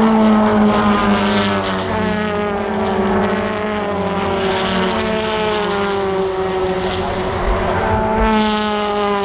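British Touring Car Championship race cars, 2.0-litre turbocharged four-cylinder engines, passing at speed, their engine notes falling in pitch as they go by. Another car arrives and passes near the end.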